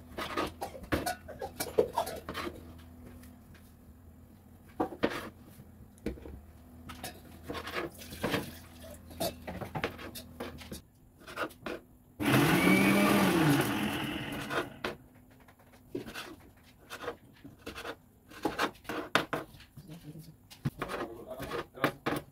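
Kitchen food-prep sounds: scattered knocks and clicks of utensils and dishes, with a rush of running tap water for about two and a half seconds in the middle.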